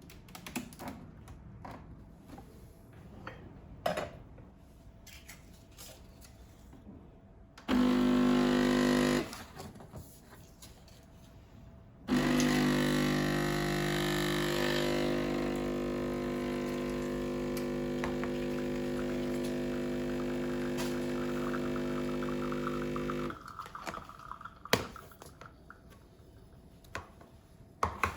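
A small electric appliance motor humming: a short run of about a second and a half, a pause, then a steady run of about eleven seconds that stops abruptly. Light clicks and knocks of objects being handled come before and after it.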